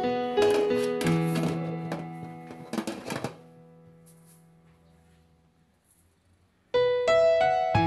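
Background music of gentle piano or keyboard notes fades out over the first few seconds, with a brief clatter about three seconds in. A short near-silent gap follows, then the music starts again near the end.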